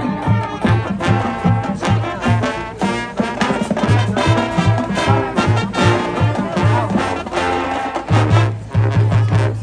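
High school marching band playing a brass-led tune, with horns over a steady beat of low bass notes and drums.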